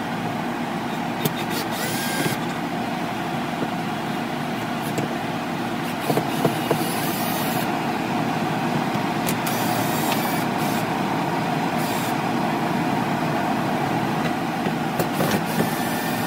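Travel-trailer rooftop air conditioner running with a steady, loud hum and rush of air. Over it, a cordless drill runs in several short spurts as it backs screws out of the plastic ceiling shroud, with a few sharp clicks.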